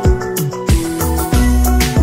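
Background music with a steady beat: deep bass drum hits about every two-thirds of a second under held melodic tones.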